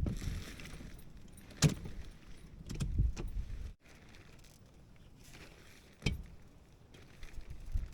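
Scattered knocks and metallic clinks of gear being handled. The sound cuts off abruptly a little under four seconds in.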